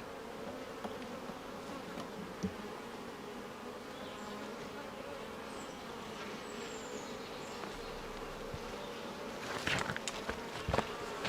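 Honeybees buzzing steadily around an open hive while a frame is out for inspection. A few brief clicks and knocks come near the end.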